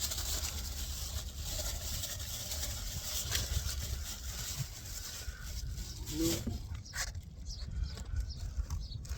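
Rustling and light clatter of fishing tackle being rummaged through in search of bait elastic, with wind rumbling on the microphone.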